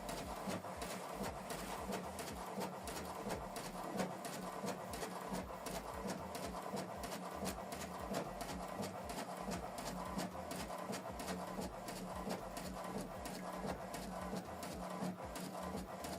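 HP Deskjet 4310 inkjet printer printing a page: a faint, steady running sound with a quick series of small clicks.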